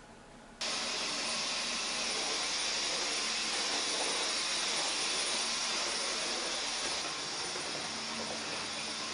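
Cordless stick vacuum cleaner switched on about half a second in and running with a steady high whine. It gets slightly quieter about seven seconds in.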